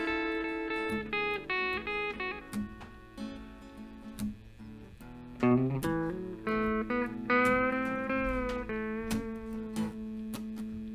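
Instrumental intro of a band song: guitars picking and holding notes, with a lead line that bends in pitch, before any singing.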